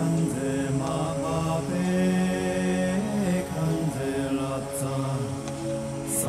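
Background music of chanted voices singing long held notes.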